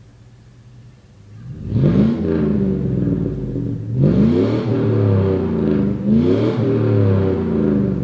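V8 pickup exhaust through Flowmaster Super 10 chambered mufflers with the catalytic converters removed. It idles low, then is revved three times about two seconds apart, starting about two seconds in; each rev climbs quickly and falls back more slowly.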